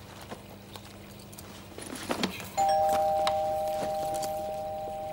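A doorbell chime rings once about two and a half seconds in: two steady tones start together and fade slowly. Before it there are a few soft clicks and rustles.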